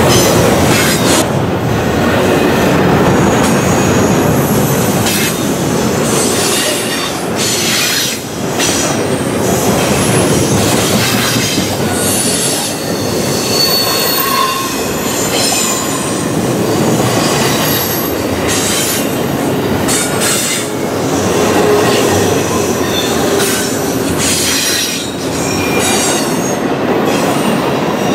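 Double-stack intermodal container train rolling past close by: a steady loud rumble and rattle of the cars, with short high-pitched wheel squeals and repeated sharp clicks and clanks throughout.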